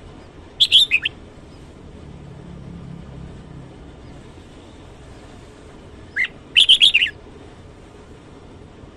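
Red-whiskered bulbul singing two short, bright warbled phrases: one about a second in and a second, slightly longer one about six seconds in.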